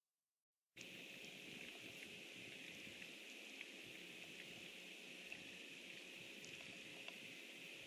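Faint, steady outdoor pond ambience: an even hiss with a low steady hum and a few faint ticks. The sound is cut out completely at first and comes back under a second in.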